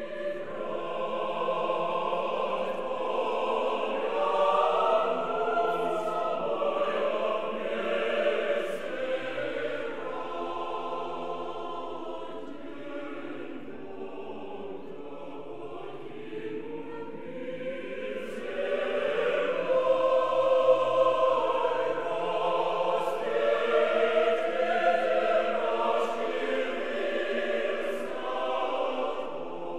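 A choir singing slow, sustained music, swelling louder about five seconds in and again around twenty seconds in.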